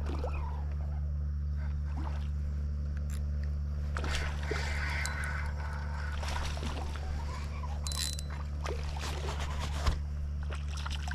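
A steady low hum under light water sloshing and gurgling against a small boat, with scattered small clicks and one sharp knock near the end.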